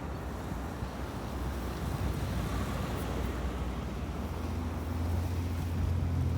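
Motor vehicle engine running close by, a low steady rumble that grows louder toward the end, with wind on the microphone.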